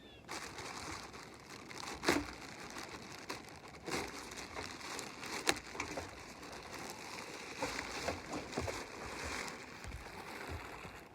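Plastic garbage bag and tape being pulled off a roof whirlybird vent, crinkling and rustling throughout, with a few sharp cracks and knocks, the loudest about two seconds in.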